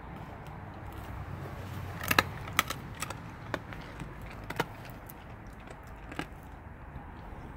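Blue Bay Shepherd dog chewing the last scraps of a raw turkey carcass: a handful of sharp crunches, the loudest clustered about two seconds in and a few more scattered after.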